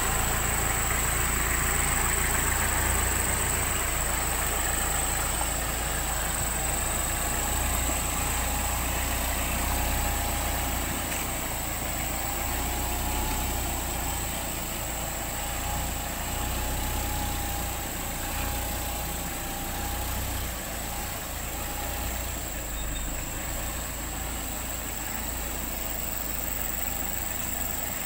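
A vehicle engine idling steadily, with a low rumble that eases off slightly towards the end.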